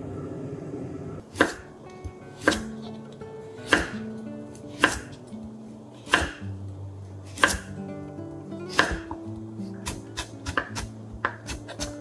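Kitchen knife slicing a carrot on a wooden cutting board, with sharp single cuts about once a second, each ending in a knock on the board. From about ten seconds in it becomes quicker chopping as the slices are cut into thin strips.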